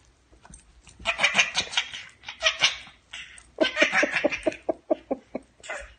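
Laughter in two runs, starting about a second in: a burst of giggling, then a quick string of short 'ha' pulses, several a second.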